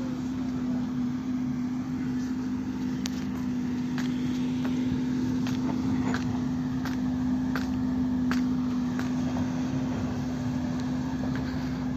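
A machine running with a steady, unchanging hum, and scattered sharp clicks over it.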